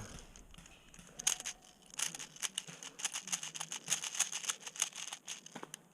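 Irregular crackling and crunching, like dry leaves and brush being trodden through or pushed aside, dense from about two seconds in until near the end.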